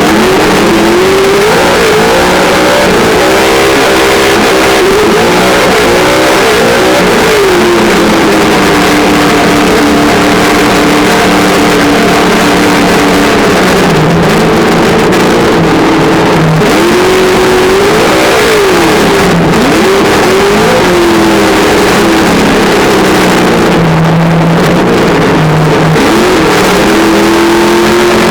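Traxxas Slash's On-Board Audio speaker playing a loud simulated engine sound, its pitch rising and falling over and over with the throttle.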